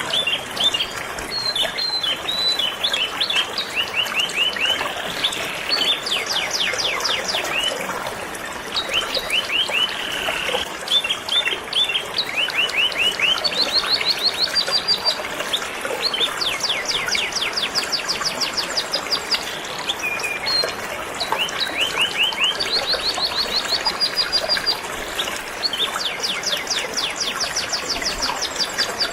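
Canary singing continuously in long runs of rapid high trills and chirps, over the steady rush of flowing river water.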